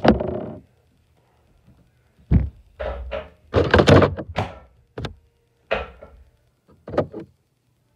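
A series of irregular knocks and thumps, about seven in all, some with a short hollow ring after them.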